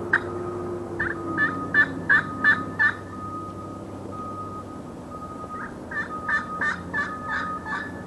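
Titanium striker on a slate turkey pot call playing two runs of yelps, about three sharp notes a second, with a softer steady tone on the slate in the pause between the runs.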